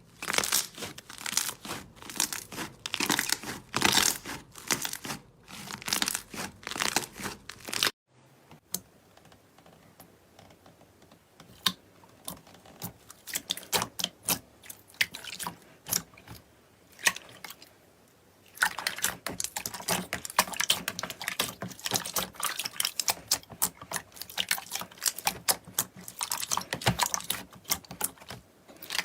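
Slime being squeezed and poked by hand, with a dense run of crackling, popping clicks. The sound cuts off sharply about eight seconds in, turns sparser and quieter, then grows dense again from about eighteen seconds.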